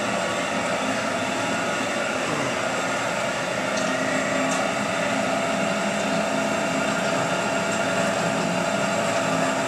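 WF Wells F15 horizontal band saw running, its 3 HP motor driving the 1-inch blade at about 150 feet per minute: a steady machine hum with a whine. The hum grows a little stronger about three and a half seconds in.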